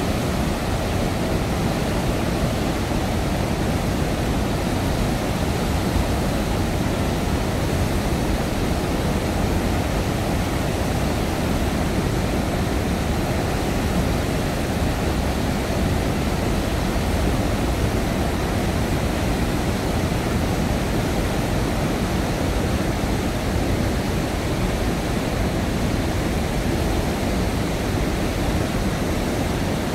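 Floodwater pouring through a dam's open gates and churning down the river in a steady, deep roar with no let-up: a flood release to lower the reservoir after heavy monsoon rain.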